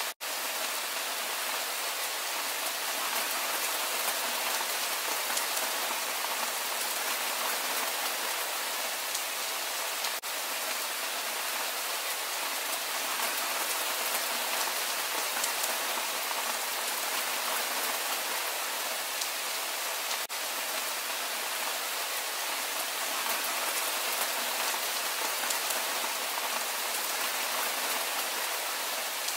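Steady rain falling, an even hiss with no thunder or other events, broken only by momentary dropouts about every ten seconds.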